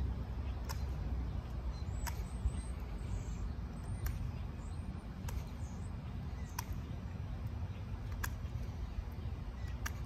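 Knife whittling a thin wooden stick: a short sharp snick about every second and a half as each cut comes off, over a low rumble of wind on the microphone.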